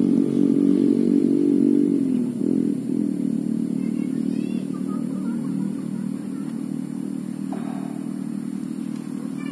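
An engine running with a steady hum; its pitch and loudness drop a little about two seconds in, then it runs on more quietly. Faint bird chirps come about four seconds in.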